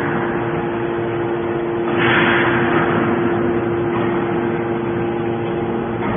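Steel can baler's machinery running with a steady hum, and a rush of noise that swells about two seconds in and fades.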